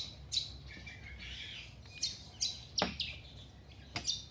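Small birds chirping in the background, and a few sharp metallic clicks from a fret tang trimming jig being set up by hand: two near the start and two more in the second half.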